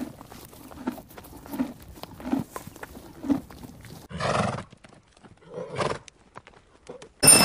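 Horses' hooves clopping at a walking pace on a dirt track, then a horse whinnying about four seconds in and calling again more briefly near six seconds.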